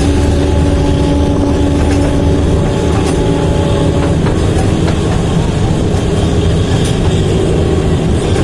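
Narrow-gauge passenger train running steadily, heard from on board: a continuous low rolling rumble of wheels on track, with a few faint clicks from rail joints.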